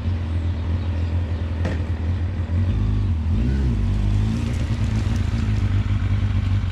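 Sports motorcycle engine running low and steady in first gear as the bike pulls away slowly. The engine note dips and rises briefly about three seconds in, and there is a single sharp click shortly before.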